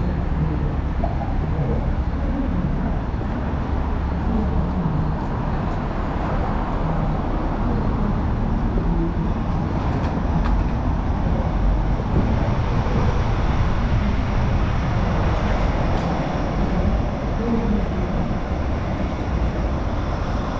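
Steady city road traffic: a continuous low rumble of cars on the street and the nearby overpass.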